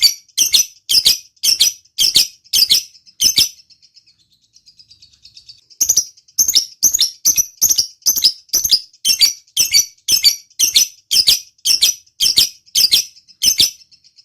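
Lovebird calling: loud, sharp, repeated chirps about twice a second. A softer, rapid chatter fills a pause from about four to six seconds in, and then the loud chirps resume.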